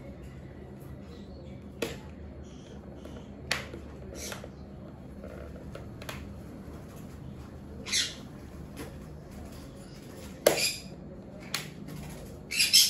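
Pet parrots squawking in short, sharp calls several times, with the loudest burst of calls near the end. A few sharp clicks come in between.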